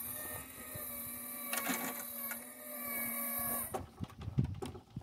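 Electric motor of a homemade Griswold-style crossing gate mechanism running with a steady whine as the gate arm comes down, cutting off suddenly near the end. A knock comes partway through, and scattered clicks and rumble follow the stop.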